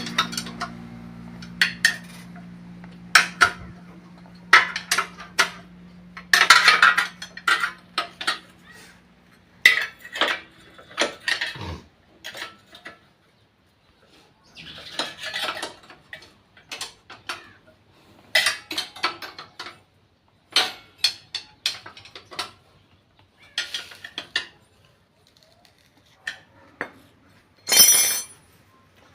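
Metal tools and bolts clinking and knocking against a motorcycle engine's casing in irregular light strikes. There is a brighter metallic ring near the end.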